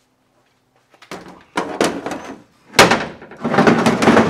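A J2 Ice Ripper unit being loaded into a pickup's plastic bed liner: knocking and clattering of the metal frame and motor, with a loud bang a little under three seconds in, followed by about a second of rattling and scraping as it is pushed into the bed.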